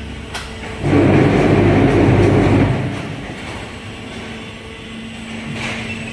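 Concrete-block plant pallet-handling machinery running: a loud rough rolling rumble, like a loaded transfer car or pallets moving on rails, lasts about two seconds. It then settles to a steady machine hum, with a sharp clack near the end.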